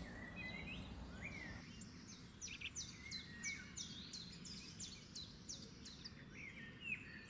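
Faint bird chirping: a run of quick, high, downward-sliding chirps, about three a second, for a few seconds mid-way, with a few lower whistled notes before and after, over a faint steady hiss.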